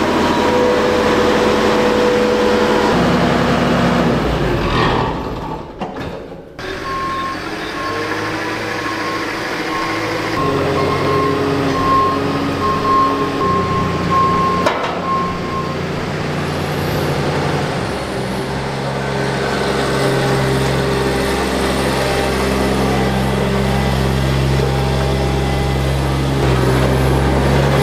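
Heavy diesel work machine running and moving, its engine note changing in steps, with a reversing alarm beeping for several seconds in the middle.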